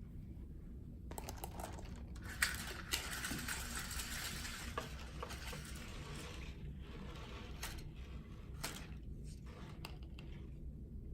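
Rustling and crinkling for about five seconds starting a second in, followed by a few separate clicks.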